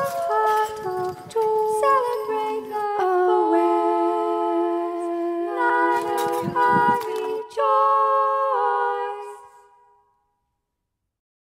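Unaccompanied singing: several voices holding long notes in harmony and moving from note to note, fading out about ten seconds in.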